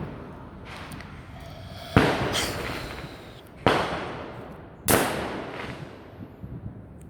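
Fireworks exploding: three loud bangs, about two, three and a half and five seconds in, each followed by an echo that trails away over a second or so, with a fainter bang near the start.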